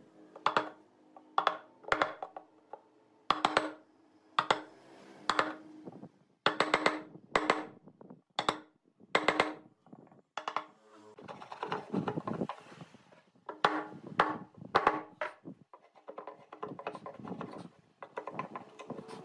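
Steel wood chisel struck again and again, sharp knocks each with a brief ring, chopping out a shallow recess in a pine board. In the second half the knocks thin out and give way to softer scraping as the chisel pares the bottom of the recess by hand.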